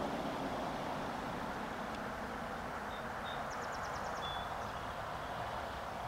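Distant Norfolk Southern freight train led by EMD diesel locomotives (a GP-series Geep and an SD40-2) approaching: a steady low rumble and wash of engine and rail noise, with no horn yet.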